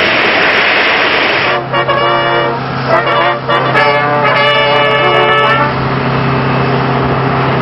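Jet aircraft noise, a loud even rush for about a second and a half. Then music takes over: a steady low drone under a melody of held notes, the melody fading back about two seconds before the end while the drone carries on.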